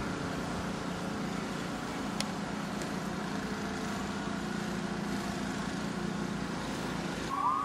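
A motor running steadily with an even hum, under a steady outdoor noise. Near the end a rising tone begins.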